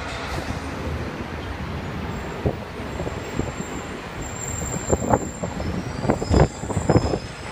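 New York City subway train running on the elevated steel structure: a steady rumble, with a run of irregular clacks and thumps in the second half as the wheels pass over the rail joints.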